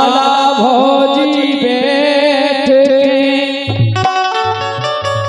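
Live Indian folk music: a harmonium plays sustained chords under a wordless, wavering sung line, with drum strokes about twice a second. About four seconds in, the voice drops away and the held harmonium tones continue over pulsing low notes.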